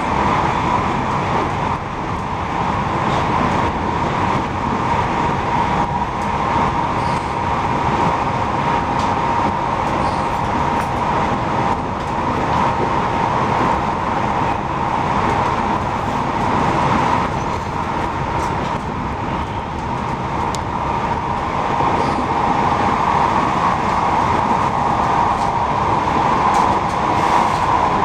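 A TER regional passenger train running at speed, heard from inside the carriage: a continuous running rumble with a steady mid-pitched tone over it, which grows stronger toward the end.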